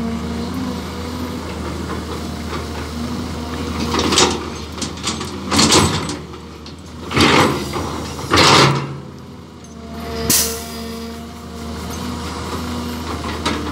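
Caterpillar 320 hydraulic excavator's diesel engine running steadily, with a steady hydraulic whine. Several loud rushing bursts in the middle, as a bucketful of soil is dumped into a steel dump-truck bed.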